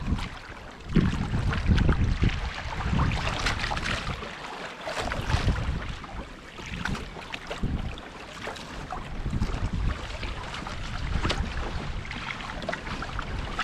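Water splashing and lapping against the hull of a Hobie Tandem Island sailing kayak under way, in many small irregular slaps, with wind buffeting the microphone in uneven low rumbles.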